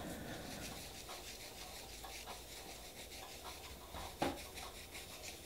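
Faint rubbing and handling noises from nail-stamping tools being moved about on a work surface, with small ticks and one light knock about four seconds in.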